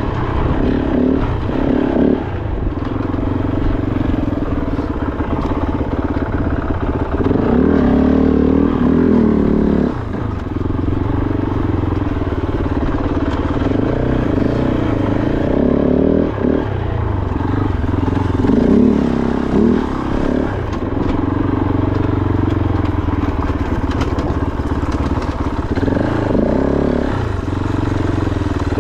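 Kove 450 Rally's single-cylinder engine being ridden on rough single track, the revs rising and falling again and again as the throttle is opened and rolled off.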